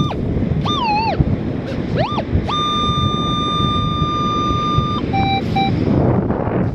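Metal detector sounding over a target as the coil sweeps: a few wavering tones that swoop up and down, then one steady high tone held for about two and a half seconds, then a few short lower beeps. Wind on the microphone and surf run loud underneath.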